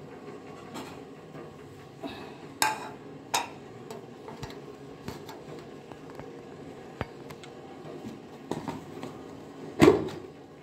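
Scattered knocks and clicks of kitchen things being handled on a counter: a plastic storage container and ceramic mugs set down and moved, with the loudest knock near the end as the container's lid is worked open.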